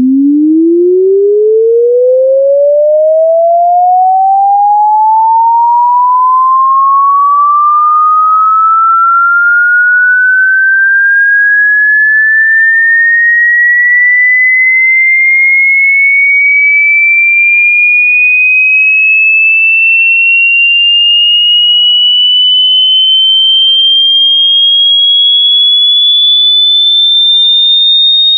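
A pure sine-wave tone sweeping steadily upward in pitch, from a low hum to a high whistle, climbing quickly at first and then more slowly, at a steady loud level.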